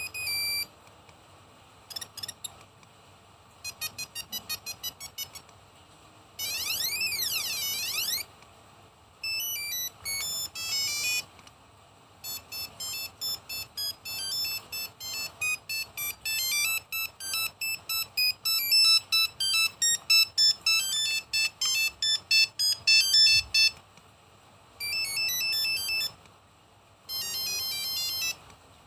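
Nokia 1108 mobile phone playing one built-in monophonic ringtone after another, with short pauses between them. They include brief runs of electronic beeps, a warbling, up-and-down siren-like tone about seven seconds in, and a long, fast, beeping melody through the middle.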